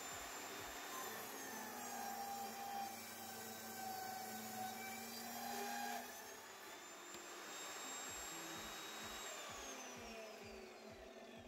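Table saw ripping a length of old timber, the motor whining under load. About six seconds in the cut ends and the motor picks up speed, then it is switched off and the blade winds down, its whine falling in pitch near the end.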